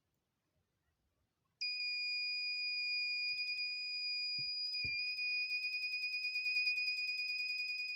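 Homemade bike-horn circuit's buzzer sounding one steady, high-pitched tone that starts about a second and a half in. From about halfway a fast, regular flutter rides on the tone, and there are two faint knocks.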